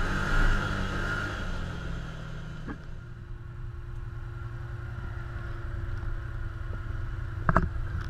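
Can-Am Commander side-by-side's V-twin engine running under way, then dropping to a steady idle about three seconds in as the machine slows and stops. A short sharp clack near the end.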